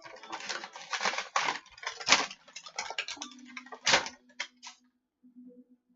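Packaging of a boxed figurine and its stand being handled: a rapid run of crackles and sharp taps that thins out about four to five seconds in.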